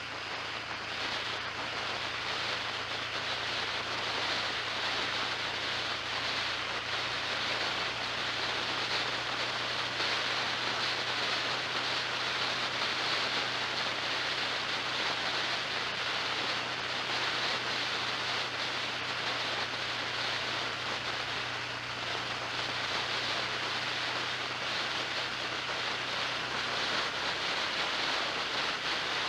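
Steady hiss of wind and road noise from a vehicle on the move, with a steady low hum underneath.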